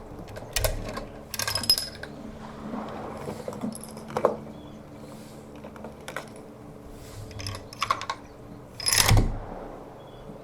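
Metallic clicks and clinks of rifle handling, such as cartridges being handled and a rifle's action being worked, in several short clusters. The loudest click comes near the end.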